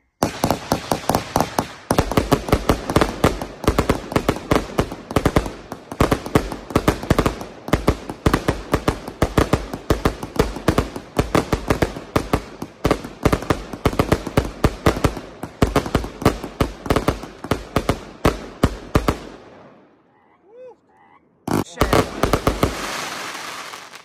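Exploding Rainbow Gun Nuclear fireworks cake firing a rapid barrage of shots and bursting bangs, several a second, for about twenty seconds. After a brief lull with frogs croaking, it fires one more short volley.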